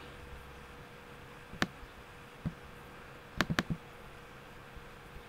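Sharp computer mouse clicks over a faint steady hum: single clicks about one and a half and two and a half seconds in, then a quick run of three, the first two a double click.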